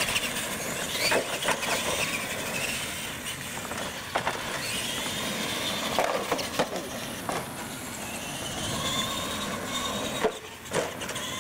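Radio-controlled monster trucks racing on concrete, their electric motors and gears whining and rising and falling in pitch as they speed up and slow down. Several sharp knocks are heard as they hit the ramps and obstacles.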